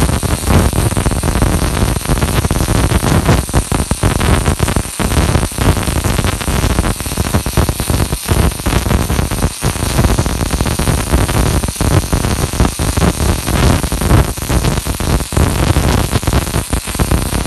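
Welding arc crackling and hissing continuously, loud and rough, with brief irregular dropouts.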